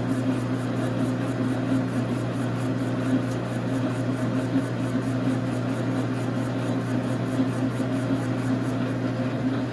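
1989 Dar Sin gap bed metal lathe running steadily under power feed, turning a bar of 6061 aluminium: an even machine hum with a few fixed low tones.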